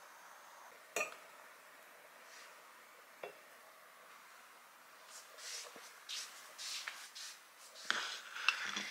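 Dishes and cutlery being handled: a sharp clink about a second in and another a little after three seconds, then a run of clattering and scraping with a few sharp clinks through the last few seconds.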